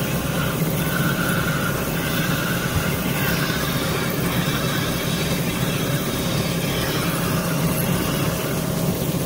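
Oil expeller machinery running with a steady low drone.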